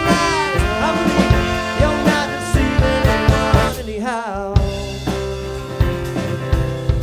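Live band music from a horn-led band with trombone, saxophone, guitars and drum kit, playing an instrumental passage. About four seconds in the band drops out for half a second, leaving a single wavering note, then comes back in full.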